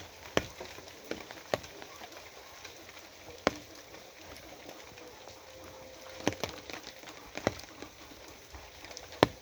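Rain falling steadily, with single drops striking a hard surface as sharp, irregular taps over the even patter.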